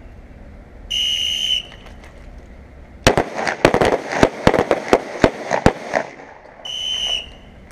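A whistle blast, then a ragged volley of about a dozen pistol shots from a line of shooters each firing a two-shot burst, lasting about two and a half seconds. A second whistle blast comes near the end, about six seconds after the first.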